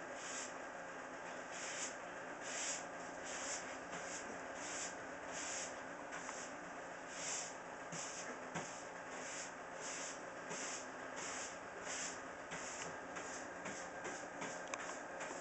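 Soft, breathy hissing sounds from a Saint Bernard and her nursing puppies, repeating about one and a half times a second over a faint steady hum.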